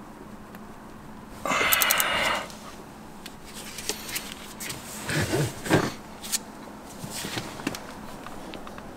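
Torque wrench ratcheting with a fast run of clicks for about a second, as the steering wheel's centre bolt is tightened, then a few faint clicks and knocks.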